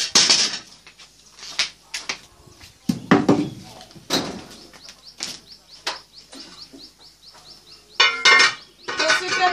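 Scattered knocks and scrapes of a cooking pot and dishes, with a small bird chirping in a quick repeated series in the middle.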